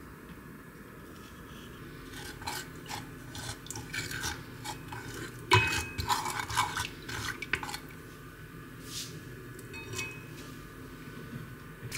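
Wooden spoon stirring sauce in an enameled cast-iron pot, scraping and knocking against the pot, with the sharpest knock about five and a half seconds in and the clatter thinning out near the end.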